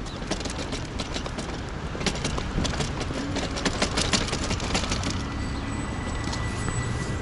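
Wind buffeting the microphone, with a dense run of sharp clicks and taps in the middle.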